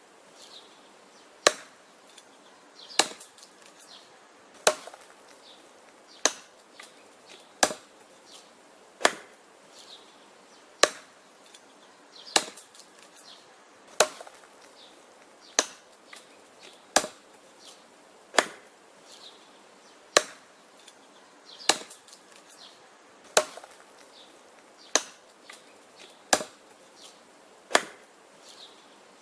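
Wood being chopped with an axe: a steady series of sharp chopping blows, about one every second and a half, each followed by fainter knocks and clicks.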